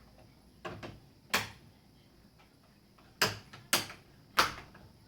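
Plastic screen bezel of a Toshiba L75-B1750 laptop snapping into the lid's clips as it is pressed home: about five sharp clicks, the three loudest in the second half.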